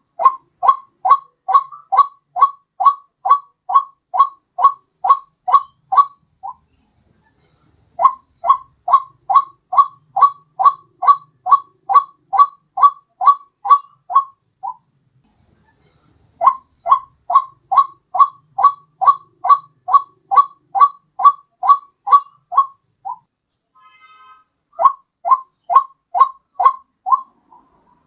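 White-breasted waterhen (ruak-ruak) call played as a bird-trapping lure: a loud, pitched note repeated about two and a half times a second in runs of roughly six seconds, broken by pauses of a second or two.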